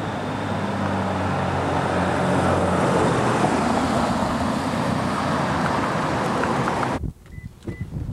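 Road traffic: a vehicle's engine hum and tyre noise swell over the first few seconds and hold steady, then cut off abruptly. After that it is quiet, with a few light clicks as a car's door handle is grabbed and pulled.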